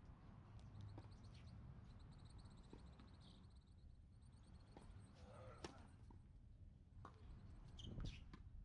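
Near silence: faint outdoor ambience with a low rumble, a few faint distant knocks, and a faint high chirping trill for a couple of seconds in the middle.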